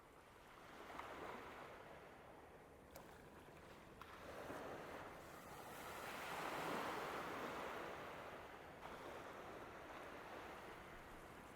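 Faint sound of surf washing in, a rushing noise that swells and fades three times, loudest about two-thirds of the way through.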